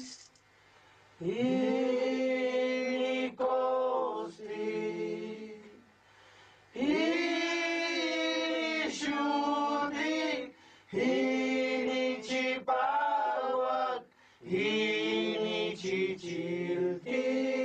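Ritual chanting: voices singing four long, held phrases with gliding pitch, each a few seconds long, separated by short pauses.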